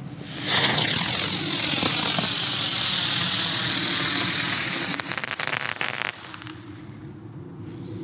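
Three Xplode Crackling Bird winged flying fireworks take off together with a loud, steady rushing hiss about half a second in. Around five seconds in, the hiss gives way to about a second of sharp crackling, the birds' crackling finale.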